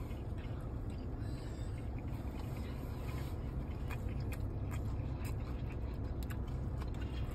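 A person chewing a mouthful of spicy crab sushi roll, with small soft clicks of the mouth, over a steady low hum of the car cabin.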